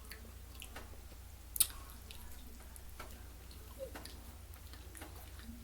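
Soft, wet mouth sounds of a person chewing food, with faint scattered clicks and one sharper click about a second and a half in.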